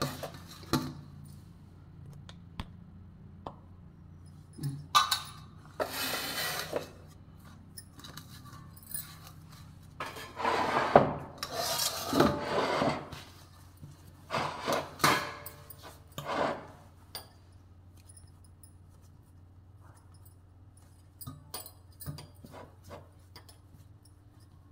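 Wooden rolling pin rolling puri dough out on a stone rolling board: several bursts of rubbing and rolling, with a few light clinks near the end, over a low steady hum.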